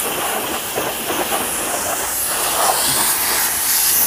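Electric car-wash pressure washer running, its motor-driven piston pump feeding the high-pressure hose, with a steady hiss of spraying water.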